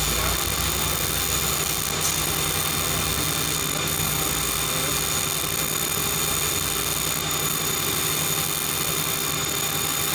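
Welding fume extraction vacuum running steadily: an even rushing noise with a constant hum and a high whine.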